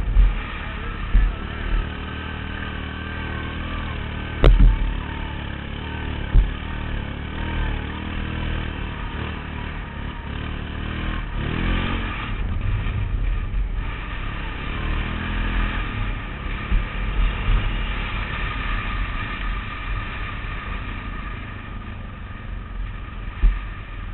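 ATV (quad) engine running while riding a trail, its pitch rising and falling with the throttle, with a few sharp thumps and knocks in the first several seconds.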